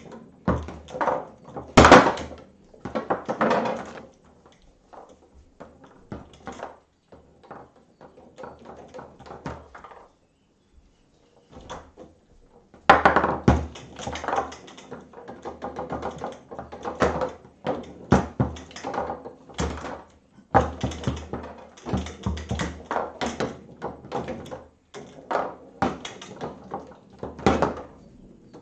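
Foosball table in play: the ball is knocked and passed between the plastic men, with rods sliding and clacking, an irregular run of sharp knocks. The loudest strike comes about two seconds in, and play goes quiet for a couple of seconds past the middle.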